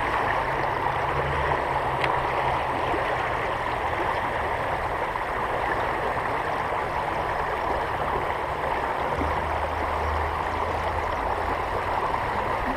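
Creek water rushing steadily over rocks in a fast little current.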